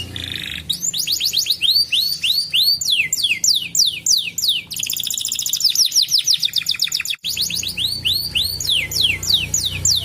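Domestic canary singing: fast trills of repeated downward-sweeping whistled notes that switch to a new pattern every second or two, including a very rapid buzzy trill around the middle, with a brief break about seven seconds in.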